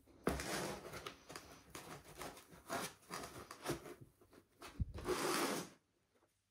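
Packaging being handled: a run of rubbing and rustling noises with short pauses, the longest and loudest near the end, stopping abruptly.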